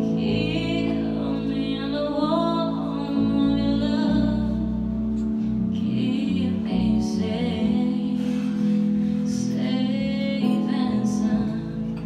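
A woman singing a slow R&B ballad live, backed by a keyboard and guitar. Her voice comes in two phrases with a short gap in the middle, over steady held keyboard chords.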